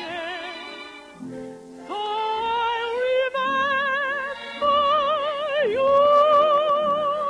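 Operetta music: a melody of long held notes with wide vibrato, climbing in pitch after a rising glide about two seconds in and loudest near the end, over sustained accompaniment.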